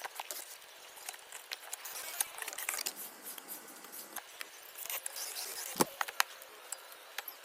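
Scattered light clicks, ticks and taps of hand tools and small parts over a faint hiss, as the broken cooling fan is worked loose inside a TIG welding machine, with a somewhat heavier knock about six seconds in.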